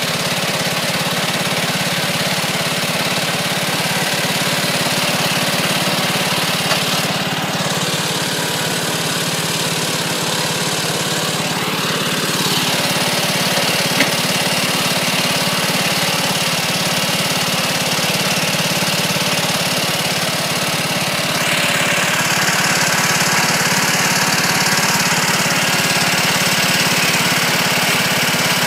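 Riding lawn mower engine idling steadily with its hood open, just got running again after months of not working.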